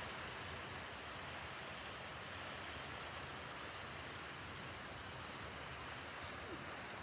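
Strong gusty wind blowing: a steady, even rushing hiss.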